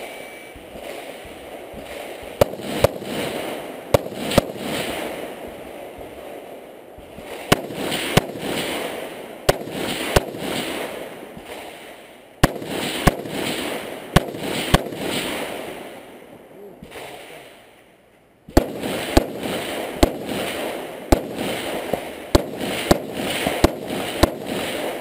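A string of semi-automatic rifle shots fired fast in groups: pairs and runs of sharp cracks with short pauses between. A dense rumble of echo rolls on after each group and dies away in the longest pause, about two-thirds of the way through.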